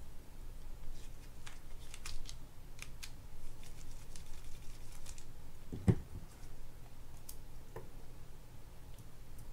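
Scattered light clicks and ticks of a mini screwdriver turning a small screw out of a spinning reel's body, then tweezers picking the screw up, with one louder knock about six seconds in.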